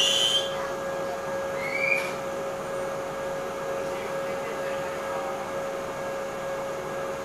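Steady electrical hum with one steady mid-pitched tone in the cab of an Enshu Railway 2000-series electric train, standing still or barely moving. A louder sound cuts off about half a second in, and a brief rising chirp comes about two seconds in.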